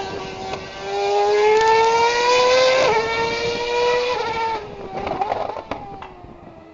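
Formula 1 car's engine at full throttle. Its pitch climbs, drops sharply at an upshift about three seconds in and climbs again, then fades as the car pulls away.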